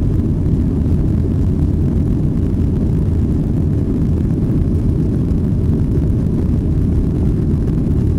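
Steady low cabin rumble of a Boeing 737-800 in the climb after takeoff: its CFM56-7B engines and the rushing airflow, heard from inside the passenger cabin.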